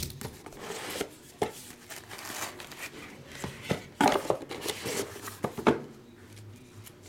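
Plastic wrap crinkling and tearing as a sealed trading-card box is cut and opened, with several sharp taps and knocks from the cardboard box being handled.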